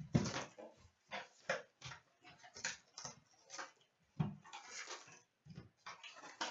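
Cellophane wrap and a cardboard box of hockey cards being torn open and handled, crinkling and rustling in a string of short, irregular bursts as the packs are pulled out.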